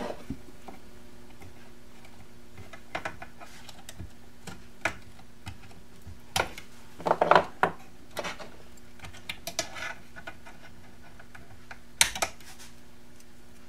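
Scattered small metal clicks and taps from hand tools and component wire leads being handled in a tube amplifier chassis, with the loudest cluster of clicks a little past halfway and another sharp click near the end.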